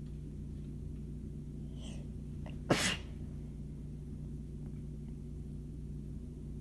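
One sharp, loud sneeze a little under three seconds in, part of a sneezing fit, with a faint gasping intake of breath just before it.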